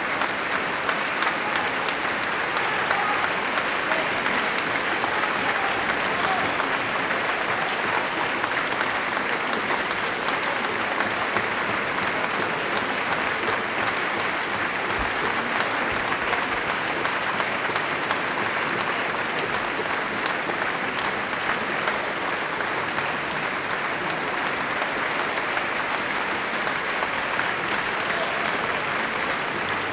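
Concert audience applauding steadily, a dense even clapping that neither builds nor dies away.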